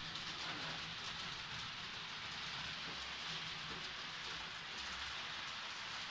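Model train running slowly along the layout track: a steady, even hiss from the motor and the wheels on the rails, with a faint low hum underneath.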